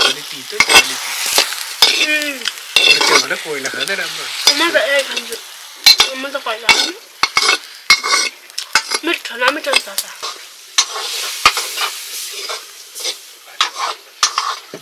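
A utensil stirring and scraping food frying in a pan, with frequent sharp scrapes and clicks over a steady sizzle. Short wavering squeals come through in the first few seconds and again around the middle.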